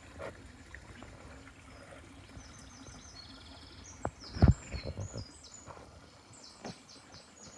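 A small songbird singing a rapid run of high, repeated notes from about two seconds in, over scattered low thumps and knocks from walking, the loudest about four and a half seconds in.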